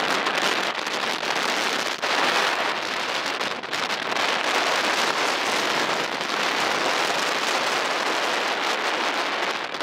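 Steady, loud rushing wind on the microphone with a crackly flutter, from moving along in the open air.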